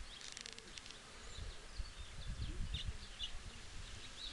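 Faint, scattered short high chirps from small birds, over an uneven low rumble on the microphone, with a brief dry crackle just at the start.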